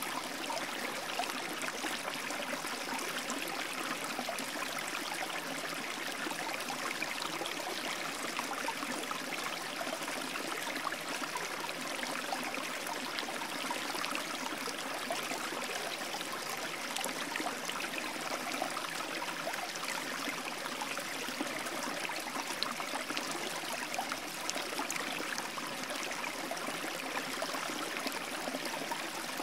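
Steady rushing and trickling of flowing water, like a stream or brook, even and unchanging throughout.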